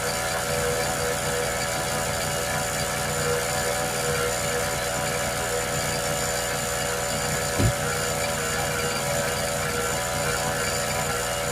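A motor running steadily, a constant drone with a steady whine over it, and a single short knock about two-thirds of the way through.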